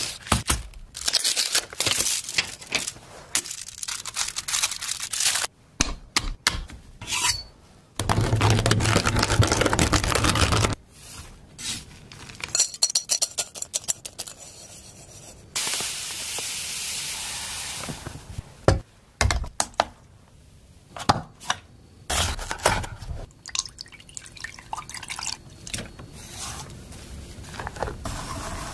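Close-up kitchen sounds of preparing chocolate: a Meiji Black chocolate bar handled and broken, a chef's knife chopping chocolate on a board, and a wire whisk stirring cocoa powder in a stainless steel saucepan. About eight seconds in there is a loud steady noise over a low hum lasting about three seconds, and later a steady hiss lasting about two seconds.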